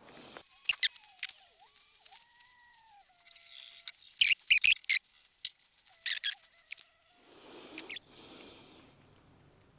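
Sharp clicks and clinks of brass plumbing fittings and PTF tape being handled and fitted together, in clusters, with faint thin squeaky tones in between.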